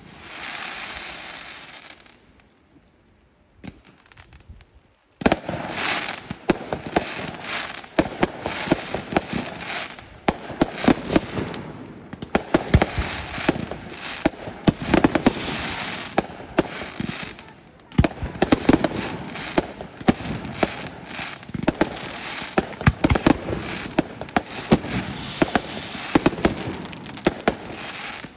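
Fireworks display: a hiss of launching effects at the start, a short lull, then from about five seconds in a dense, continuous run of sharp bangs and crackling bursts.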